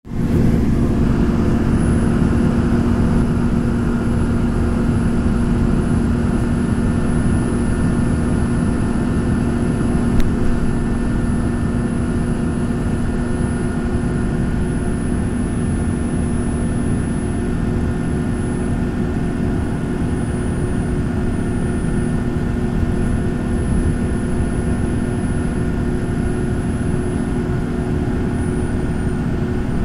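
Steady driving noise heard from inside a moving vehicle cruising on a highway: a constant low rumble of engine and tyres with an even drone.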